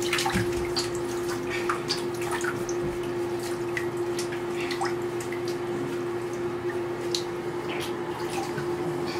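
Water splashing and dripping in a bathtub as wet puppies are handled and washed, in many short, irregular splashes. A steady hum runs underneath.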